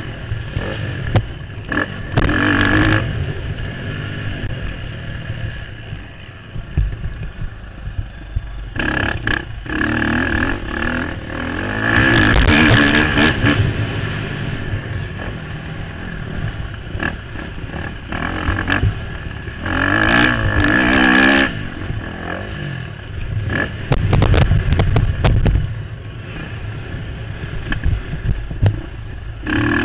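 Motocross bike engine heard from the rider's helmet, revving hard in repeated surges and dropping back between them as the throttle is opened and closed around the track.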